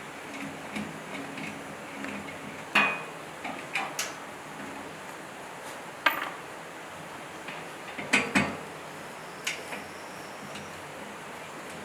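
Metal parts and hand tools clanking and clinking now and then as a wrecked generator is taken apart, with the loudest knocks about 3, 6 and 8 seconds in.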